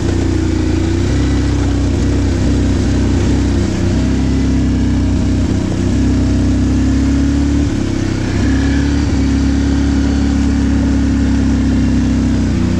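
ATV engines running at low speed: the Can-Am Outlander carrying the camera, with a Yamaha Grizzly just ahead. The engine note steps up and down several times and drops near the end.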